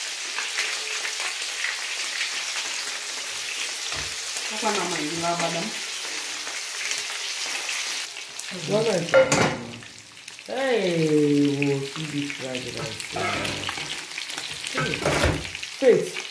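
Oil sizzling steadily in a frying pan of chicken pieces on a gas stove, with a couple of sharp utensil-like knocks partway through.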